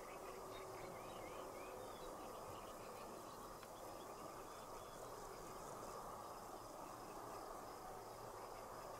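Faint outdoor ambience: a steady low rushing noise with a few short high bird chirps, mostly in the first half, and faint insect calls.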